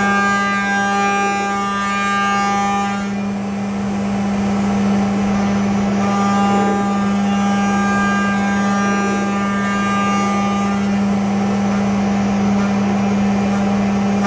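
CNC router spindle running steadily at a constant pitch while its end mill cuts Renshape tooling board. Higher whining overtones drop out about three seconds in and come back a few seconds later as the cut changes.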